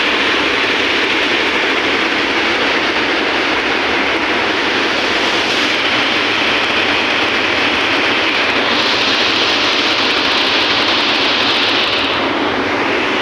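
Water rushing out of an open dam spillway gate and churning in the river below, a loud, steady roar.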